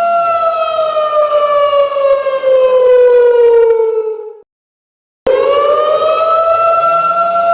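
A siren wailing on one pitched tone. Its pitch falls slowly for about four seconds, then it cuts off abruptly. After a short gap of silence it climbs quickly back up to its full pitch and holds steady.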